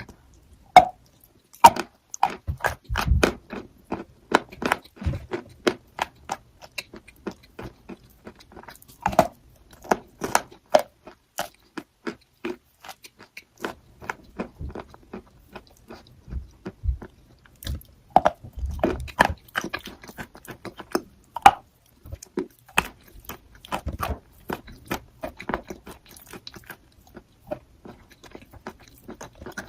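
A person biting and chewing crunchy chalk: a steady run of sharp crunches and cracks, with a short lull about twelve seconds in.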